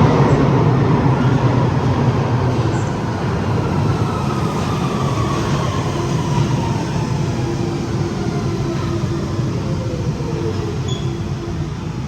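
London Underground 1992 Stock tube train arriving: a steady low rumble under a motor whine that falls in pitch over about nine seconds as the train slows. A second steady tone comes in about halfway through and holds until near the end.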